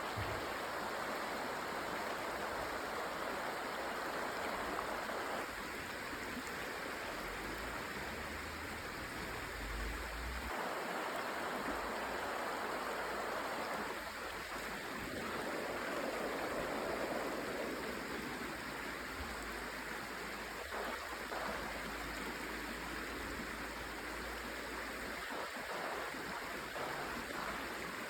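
Flowing stream water, a steady rushing and gurgling that shifts in tone a few times.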